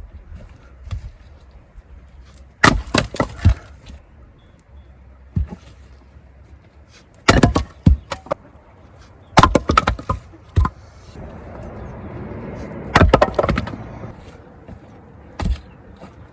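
A heavy splitting maul striking firewood rounds: four loud, sharp blows a few seconds apart, each followed by a short crackle and splintering as the wood gives way, then a lighter knock near the end.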